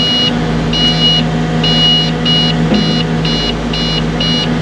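Cat 307.5 mini excavator's diesel engine running steadily while a high electronic warning beeper sounds over it, at first about once a second, then about twice a second: the alert given while the hydraulic quick coupler is unlocked. A single knock sounds a little past halfway.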